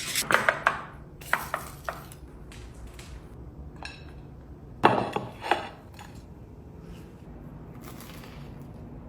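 Kitchen clatter: dishes and utensils knocking together in three short bursts of sharp clicks and knocks.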